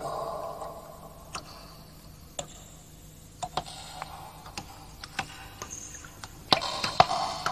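A series of irregularly spaced sharp clicks and light knocks, some followed by a brief ringing tone. A louder knock comes right at the start, and there is a louder cluster of clicks near the end.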